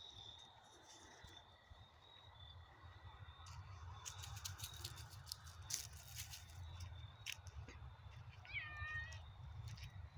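One short animal call with a falling pitch, about a second from the end, over a faint low rumble and scattered light clicks.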